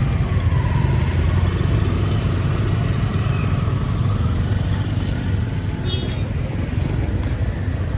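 Street traffic with motorbike and car engines running steadily, and faint voices in the background.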